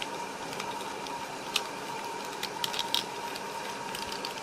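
Plastic Rubik's cube pieces clicking and tapping as a piece is fitted into the cube by hand: a few sharp clicks, one about a second and a half in and a quick cluster a little before three seconds, over a steady background hiss with a faint hum.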